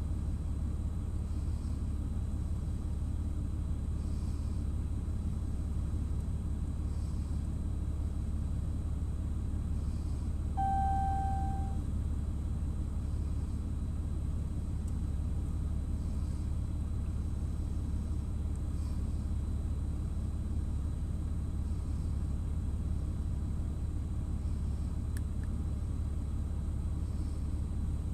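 Steady low engine rumble of heavy earthmoving machinery, with one short beep-like tone about ten seconds in.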